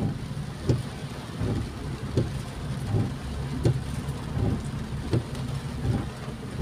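Rain and the rumble of a car driving on a wet road, heard from inside the car, with a regular low thump about every three-quarters of a second.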